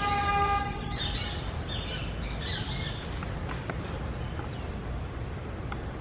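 Amazon parrots calling: a loud steady-pitched note lasting about a second, then a quick series of short sweeping chirps that thins out after about three seconds. A steady low rumble runs underneath.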